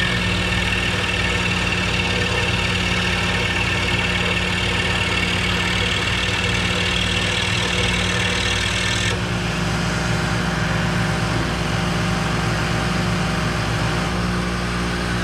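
Dust-collection vacuum blower running with a steady hum; its impeller is out of balance, which makes it noisier. A higher hiss on top stops abruptly about nine seconds in while the hum carries on.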